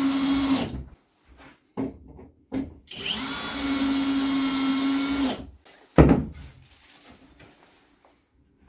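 Cordless drill driving screws into the wooden strips of a veneer-gluing form. The motor runs for under a second, gives two short trigger blips, then makes a longer run of about two and a half seconds that spins up at the start. A sharp knock with a brief falling whine comes about six seconds in, followed by faint handling sounds.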